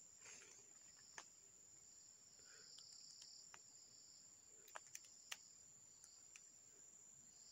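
Insects in the undergrowth keeping up a faint, steady high-pitched drone, with a few short sharp clicks about a second in and again around five seconds in.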